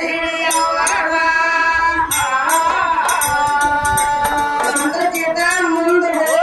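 Woman singing a gigi pada folk song in held, wavering notes, with strokes on a hand-held frame drum.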